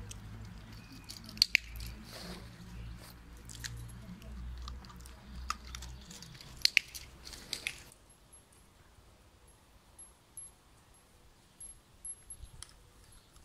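A dog chewing and crunching a treat, with sharp clicks of its teeth, for about eight seconds. Then the sound drops suddenly to a quiet hush with faint high ticking.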